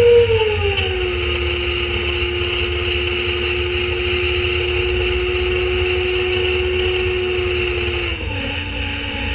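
Leach rear-loader garbage truck running, a deep diesel rumble under a steady hydraulic whine. The whine glides down in pitch about a second in and steps down again near the end as the engine revs drop.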